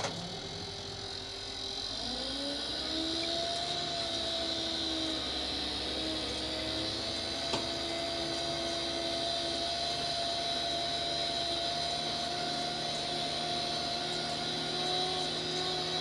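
Tractor engine rising from idle to a steady working speed about two seconds in, then running evenly, as the tedder is started up.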